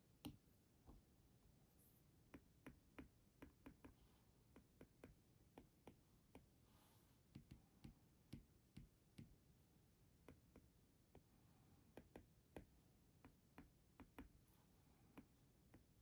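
Faint, irregular taps of an Apple Pencil's plastic tip on an iPad's glass screen, sometimes several a second, over near silence.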